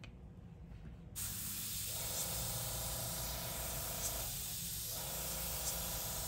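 Gravity-feed airbrush spraying practice lines: a steady hiss of air and paint starts about a second in. A faint hum joins it, breaking off briefly in the middle.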